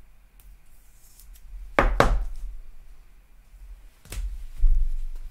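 Trading cards in a stack being handled and knocked against the desktop: a pair of sharp taps with a dull thud about two seconds in, and another pair near the end.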